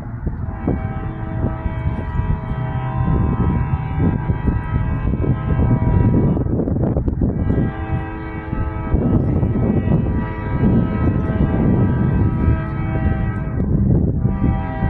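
Nathan K5LA five-chime air horn on a freight locomotive sounding long, sustained chords, with a short break about seven seconds in and another just before the end, over the heavy low rumble of the passing train.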